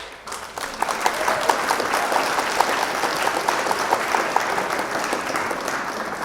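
A crowd applauding: dense clapping that comes in suddenly, then slowly eases off.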